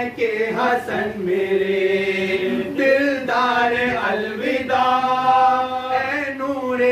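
Several men reciting a mourning lament in unison, unaccompanied, in long held notes broken every second or two.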